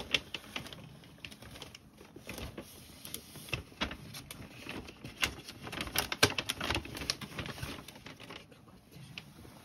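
Irregular light clicks and taps with faint rustling, scattered unevenly and busiest in the middle, like objects or cloth being handled close by.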